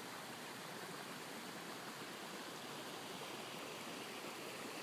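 Floodwater rushing over open ground after heavy rain: a steady, even rush of running water, like a swollen stream.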